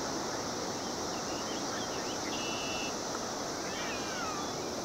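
Steady drone of a Brood X periodical cicada chorus, with a few faint short chirps and falling whistles from birds in the middle.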